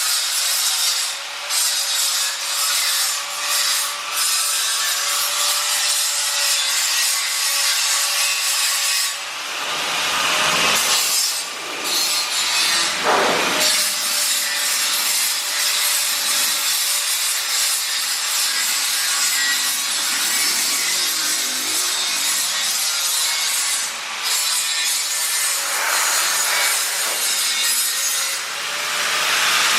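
Electric power tool working metal: a harsh continuous hiss over a steady motor whine, with the pitch dipping and rising briefly around ten and thirteen seconds in and again near the end.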